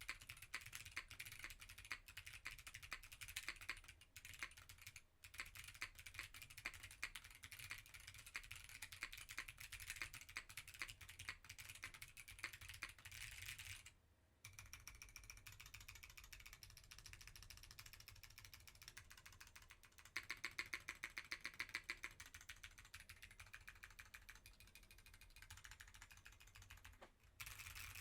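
Fast typing on a Keycult No. 2/65 custom mechanical keyboard fitted with stock Zeal Clickiez 40g clicky switches and GMK keycaps: a dense, continuous run of sharp key clicks. It pauses briefly about halfway through, and a run of more evenly spaced, stronger strokes follows a few seconds later.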